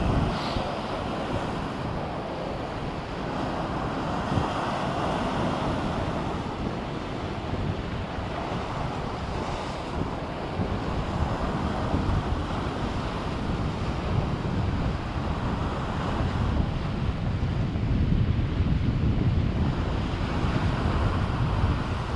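Sea waves washing against the rocks, swelling and easing every few seconds, with wind buffeting the microphone as a low rumble that grows heavier near the end.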